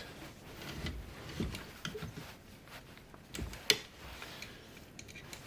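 Scattered light clicks and knocks of hand tools and small chainsaw parts being handled on the workbench, with one sharper click a little over three and a half seconds in.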